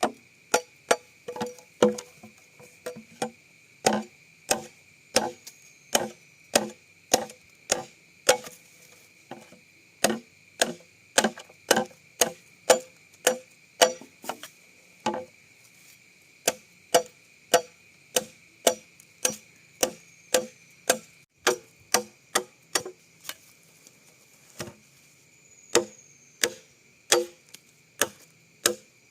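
Bamboo being chopped with a blade, sharp knocking strikes at about two a second with a few short pauses.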